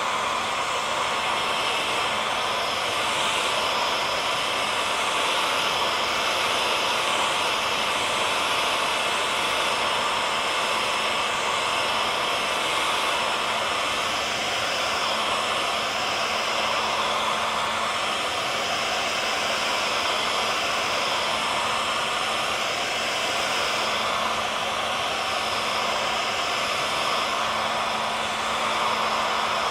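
Hair dryer running steadily: a constant airy rush with a low motor hum and a thin whine, each held on one pitch without change.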